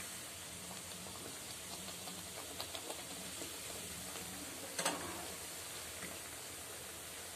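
Meethi puris deep-frying in hot oil in a kadhai: a steady sizzle, with a few light clicks and one sharper click about five seconds in as a slotted spoon turns them.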